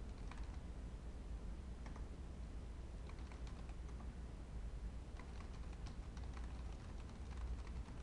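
Computer keyboard typing: faint, irregular runs of keystrokes over a steady low hum.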